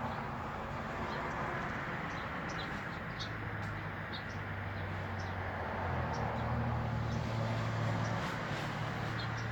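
Outdoor ambience: short, high bird chirps scattered over a steady background hiss, with a low engine-like hum coming in about three seconds in and fading near the end.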